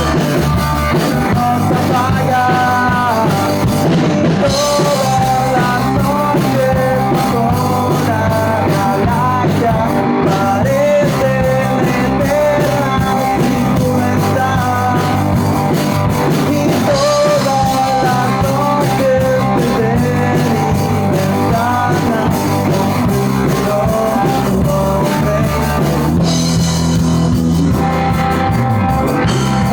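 A rock song plays with sung vocals over guitar, bass and drums, loud and unbroken.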